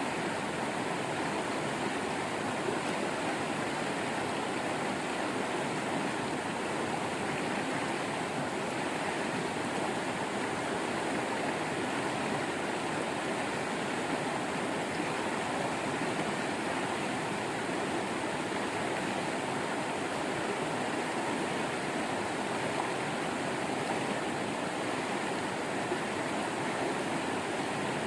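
Waterfall with running water, a steady, even rush without pauses or separate splashes.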